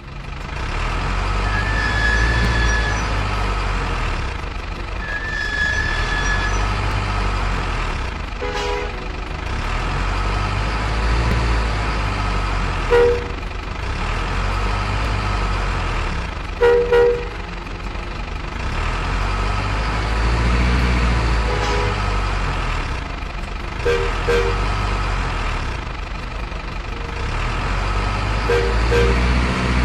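Truck engine running with a steady, slowly pulsing rumble, broken by several short two-note horn toots, the loudest about a third of the way in and just past the middle.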